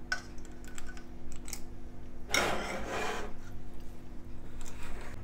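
Stainless-steel ice cream scoop scraping through hard-frozen banana ice cream, a rasping scrape of about a second just over two seconds in, with a few light metal clicks of the scoop before it. A steady low hum runs underneath.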